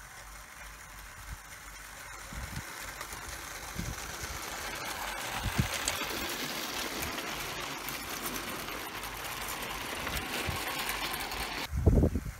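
Vintage Bassett-Lowke O gauge tinplate model of an LMS Class 2P locomotive running with a train of Hornby tinplate wagons: a steady mechanical running rattle with scattered clicks, growing louder as the train draws near and passes. It cuts off near the end, followed by a brief low rumble.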